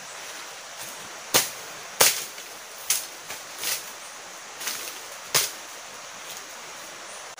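Footsteps and handling in dry forest leaf litter: a handful of sharp, irregular cracks and snaps of twigs and leaves over a steady forest hiss.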